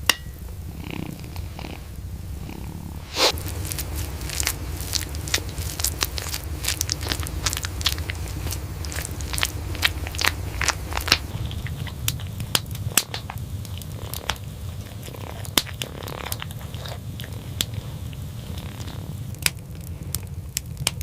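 A cat purring steadily, with many sharp crackles and clicks over it, thickest from about three to thirteen seconds in.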